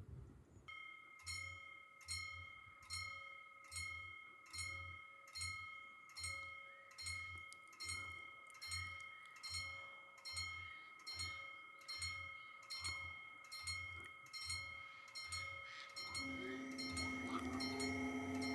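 Level-crossing warning bell starting up about a second in and striking steadily, about once every three quarters of a second, over a steady ringing tone: the crossing's warning that a train is due and the barriers are closing. Near the end a lower steady tone joins in.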